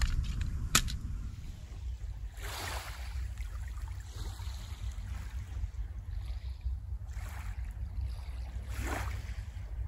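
Small waves lapping softly onto a sandy beach, several gentle washes a second or two apart, over a steady low rumble of wind on the microphone.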